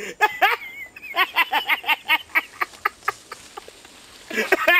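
A man's loud, high-pitched cackling laughter in quick repeated ha-ha bursts. It dies down about three seconds in and breaks out again near the end.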